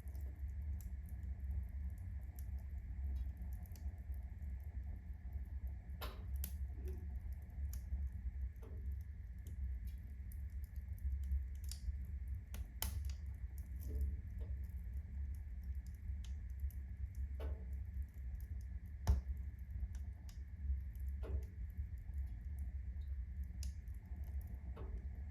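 Birch round-log fire in a fireplace crackling and popping irregularly, with a few sharper pops, over a steady low rumble of the flames; the crackle comes from the birch bark burning off in the ignition phase.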